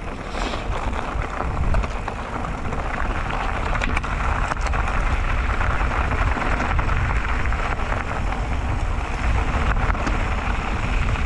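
Mountain bike rolling fast down a loose gravel dirt track: a steady rumble of wind on the microphone mixed with the crunch of tyres on stones, with a few sharp clicks from stones and the bike.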